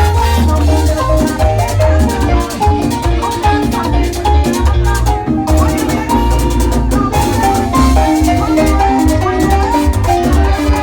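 Loud Latin dance music with heavy bass, busy percussion and a repeating melodic line.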